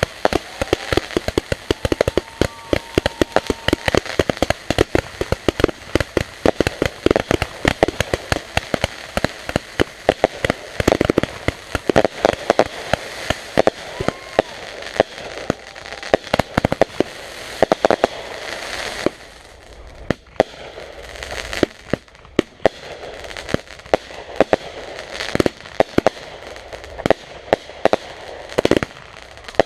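Fireworks going off in a rapid, near-continuous barrage of sharp bangs and crackles. The bangs thin out briefly about two-thirds of the way through, then pick up again.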